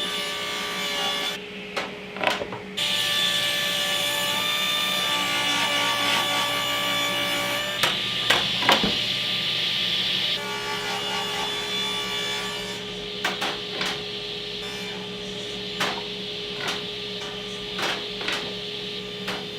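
Table saw running and cutting plywood, its steady whine changing pitch as cuts start and end. From about thirteen seconds in there are several sharp knocks.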